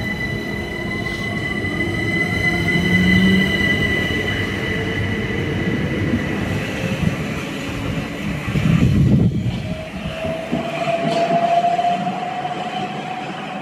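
Electric multiple-unit trains running along the platform at close range, among them a Southern Class 377 Electrostar pulling away. There is a steady high whine over the rumble of wheels on rail. The traction motors' whine rises slowly in pitch over the last few seconds as the unit accelerates.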